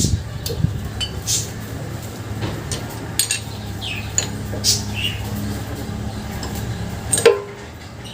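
Light metallic clinks and taps of tools at work, with lovebirds chirping now and then over a steady low hum. One sharper knock comes about seven seconds in.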